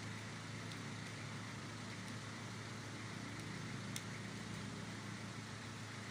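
Steady low hum with an even hiss of workshop background noise, and a single light click about four seconds in as the engine parts are handled.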